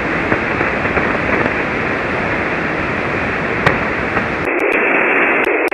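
Steady hiss of 40-meter band noise from a shortwave receiver in single-sideband mode, with no readable voice under it: the calling station has faded below the noise. A sharp click comes a little after halfway through.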